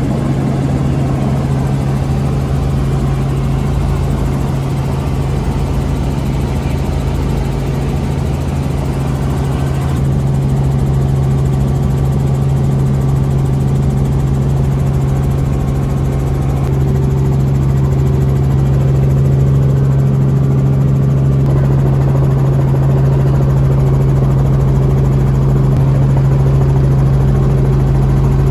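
Helicopter in flight heard from inside its cabin: the steady drone of the engine and rotor, with a strong constant low hum under a rushing noise. It grows a little louder in the second half.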